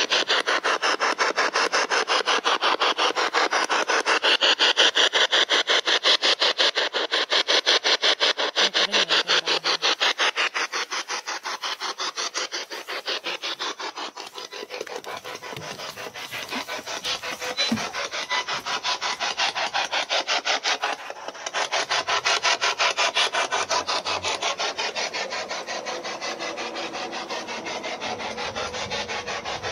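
Small handheld radio used as a spirit box, sweeping rapidly through the band: a fast, even chopping of radio static several times a second, continuing throughout.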